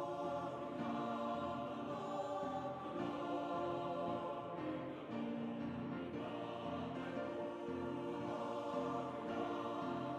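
Background music with choir-like voices singing long held chords.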